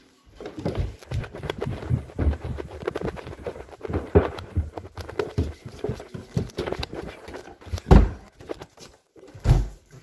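Handling noise from a phone being jostled close to the microphone: a string of irregular knocks and thumps over a wooden floor, with a louder thump about eight seconds in and another near the end.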